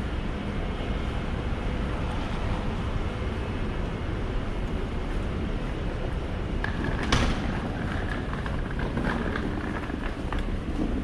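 Wet city-street ambience in heavy rain: a steady hiss of rain and traffic on wet roads, with a brief sharper sound about seven seconds in.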